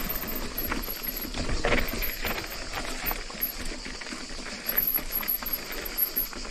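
Mountain bike rolling down a rocky trail: tyres crunching over stones, with irregular knocks and rattles from the bike and a steady hiss underneath.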